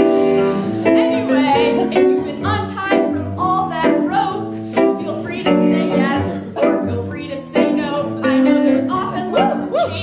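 A woman singing an improvised song, accompanied by a keyboard playing chords in a steady rhythm.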